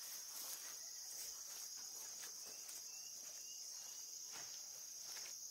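Steady high-pitched chorus of insects in the grass, a continuous buzzing drone, with a few faint rustles.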